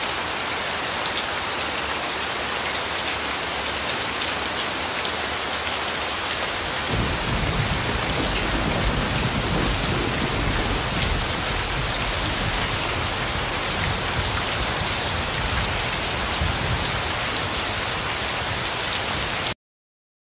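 Steady heavy rain falling. About seven seconds in, a deep low rumble joins it and carries on under the rain. Everything cuts off suddenly near the end.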